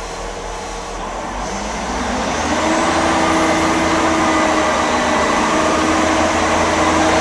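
Class 158 diesel multiple unit pulling away from the platform, its engine getting louder about two seconds in and settling into a steady hum, with a faint high whine rising over a second or two.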